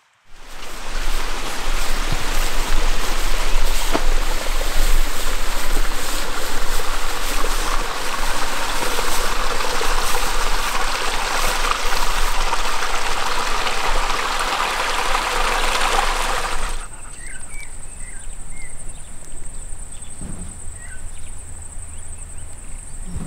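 Steady rushing of running water, like a stream. About seventeen seconds in it cuts off, leaving a quieter background with a steady high insect buzz and a few short chirps.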